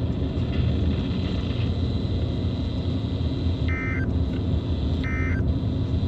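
Steady low rumble of a car cabin during a pause in a weather-radio broadcast. About halfway through, a short electronic chime begins repeating, three times about a second and a half apart.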